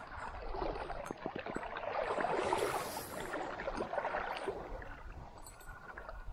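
Water sloshing and splashing in a shallow creek, with scattered clicks, swelling to its loudest about two to three seconds in and then easing off.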